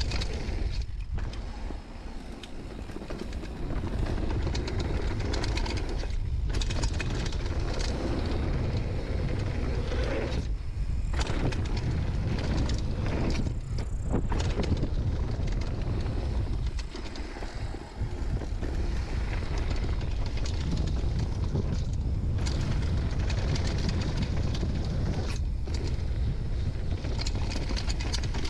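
Mountain bike descending a dirt and gravel trail at speed: wind buffeting the rider-mounted camera mic in a heavy rumble, mixed with tyre roll and the rattle of the bike over rough ground. A few brief lulls break the noise.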